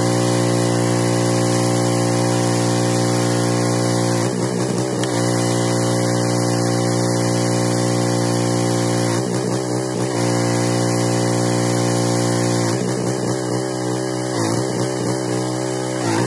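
Pressure washer running with a steady motor hum while foam sprays from a foam cannon with a hiss; the motor's pitch sags and picks back up several times as the spraying pauses and resumes.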